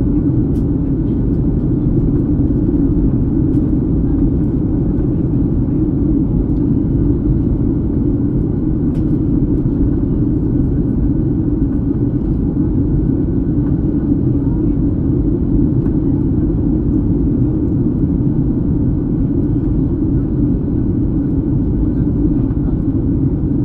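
Cabin noise of a Boeing 737-700 in descent, heard from a window seat over the wing: the CFM56 engines and airflow make a steady, low rumble.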